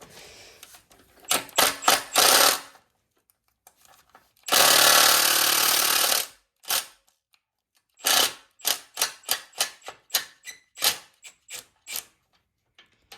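Power tool, most likely a cordless impact wrench, hammering at the motorcycle's subframe bolts: a few short bursts, then one steady run of nearly two seconds. After it comes a quick run of sharp clicks and knocks as the bolts are worked loose.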